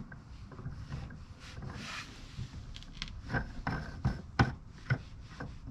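A white plastic livewell fitting being screwed on by hand through the wall of a cooler: rubbing and scraping, with several light clicks and knocks in the second half.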